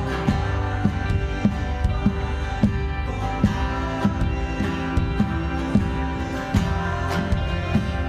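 Instrumental music: guitar over sustained chords, with a steady beat.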